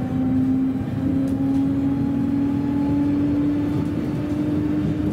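Electric train (JR 719 series 5000) heard from inside the passenger car as it pulls away: a steady motor hum rising slowly in pitch as the train gathers speed, over the running rumble.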